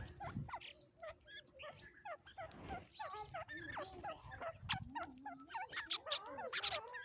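A flock of birds calling all at once: a dense, unbroken chatter of many short overlapping chirps and rising and falling notes.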